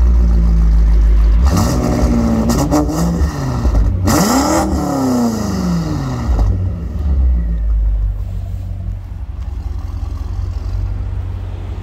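Tuned BMW M5 F90 Competition's 4.4-litre twin-turbo V8 through an Akrapovic exhaust, idling, then blipped twice, about a second and a half in and again about four seconds in. Each rev rises quickly and falls back, and the engine then settles to a steady idle.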